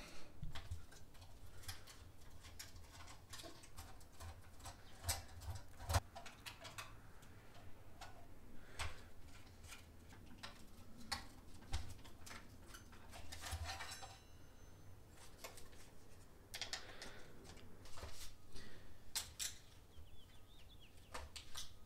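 Scattered light clicks and ticks of hand work on a car stereo: a screwdriver turning screws out of the factory radio's metal chassis and side brackets, and the plastic bezel and metal parts being handled.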